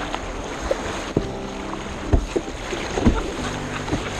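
Kayak running a riffle of small river rapids: rushing water, with a sharp splash or slap of paddle blade or hull on the waves about once a second.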